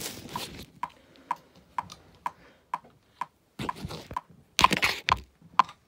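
Online metronome on a phone ticking at 126 beats per minute, about two short clicks a second. Handling noise as the phone is set down at the start, and louder rustling and bumps about four to five seconds in.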